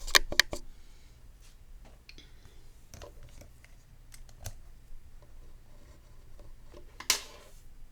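Small sharp clicks and taps of hand tools and parts being handled on a phone-repair bench: a quick cluster of clicks at the start, scattered light ticks, and a louder short scrape about seven seconds in.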